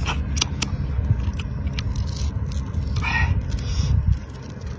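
Close-miked eating sounds of a person biting and sucking the roe out of cooked starfish arms: wet mouth clicks and smacks, with a short slurp about three seconds in, over a low steady rumble.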